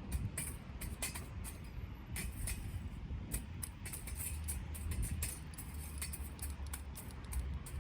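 Conifer firewood burning in a Solo Stove-style wood stove, crackling with frequent irregular pops over a low steady rumble.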